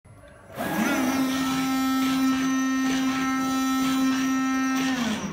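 Digital knife cutting machine's cutting head running: a loud, steady buzzing hum that spins up with a brief rise in pitch about half a second in, holds level, and winds down with a falling pitch near the end.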